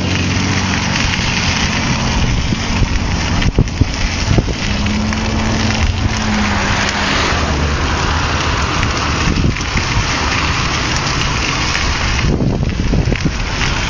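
Storm noise: rain and wind rushing loudly, swelling and easing, over the low hum of vehicle engines, with a few sharp knocks.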